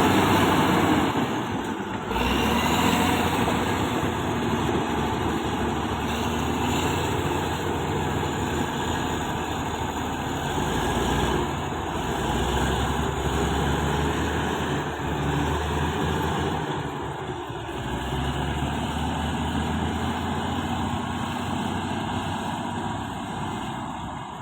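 Komatsu D155A-6 bulldozer's six-cylinder diesel engine running steadily as the dozer works, its heavy drone rising and easing a little, dipping about a second in and fading near the end.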